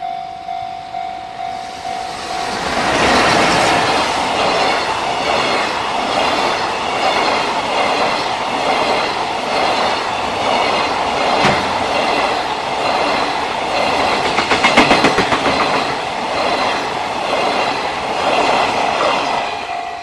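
Freight train of flat wagons loaded with long rails, hauled by an EF210 electric locomotive, passing at close range: loud rolling noise with wheels clattering over the rail joints and a quick run of clicks about 15 seconds in. A level-crossing warning bell rings about twice a second at the start, is drowned out once the train reaches the crossing, and is heard again near the end as the last wagon passes.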